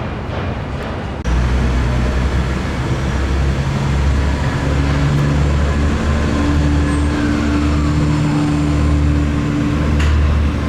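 Motor vehicle running: a steady low engine hum with road noise, which starts abruptly about a second in. A faint falling whine is heard around the middle.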